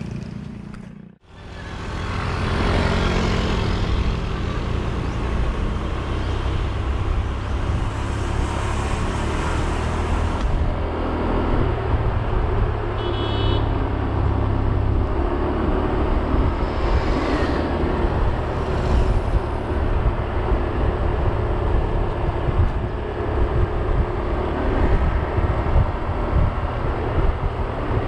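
Wind buffeting a moving camera's microphone, with road and tyre rumble, during a fast downhill ride. It is a steady, loud rush with a fluttering low end that cuts in after a brief dropout about a second in.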